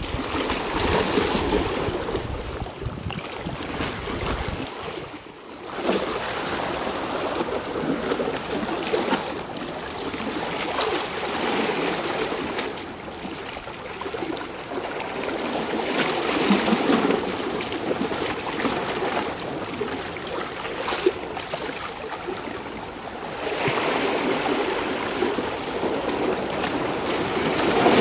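Sea waves washing and splashing against the rocks and concrete blocks of a breakwater, swelling and easing every few seconds.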